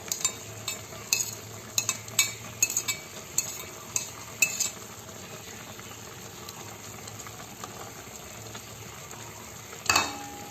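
A spoon clinking against a plate and the rim of an aluminium pot as chopped herbs are scraped in, a dozen or so quick clinks over the first four and a half seconds, over the steady hiss of the stew simmering. A louder clatter comes near the end.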